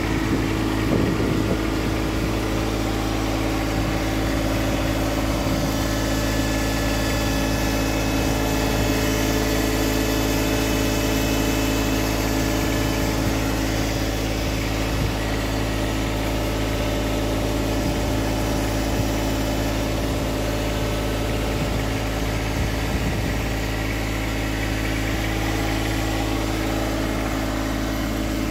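John Deere 1026R compact tractor's three-cylinder diesel engine idling steadily.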